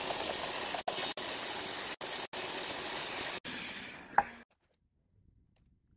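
A steady, even hiss, broken by several brief sudden gaps, fading out about four seconds in, followed by near silence.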